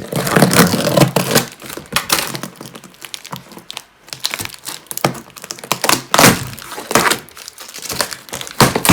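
A knife cutting through the tape and cardboard of a taped parcel, with cardboard and packing crinkling and knocking in an irregular run of sharp cracks and thuds.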